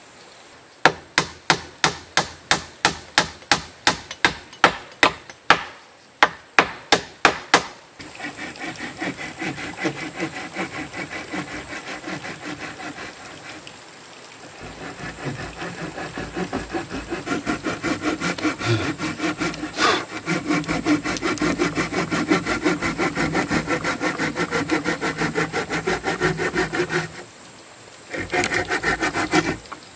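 A run of sharp knocks on wood, about three a second, for the first several seconds. Then a folding hand saw cuts through a wooden plank in quick, even strokes, stopping briefly near the end before starting again.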